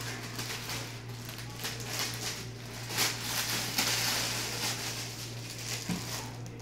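Clear plastic packaging crinkling and rustling irregularly as a hair bundle is worked out of its bag, over a steady low hum.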